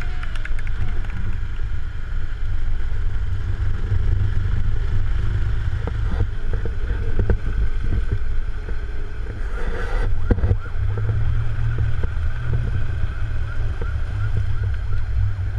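Longboard wheels rolling over rough asphalt: a steady low rumble with wind buffeting the microphone, and a few clicks and knocks around the middle.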